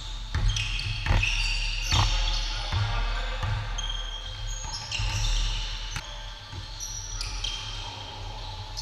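Basketball bouncing on a hardwood gym floor, with a few sharp bounces in the first two seconds and another around six seconds in, mixed with many short, high sneaker squeaks from players moving on the court.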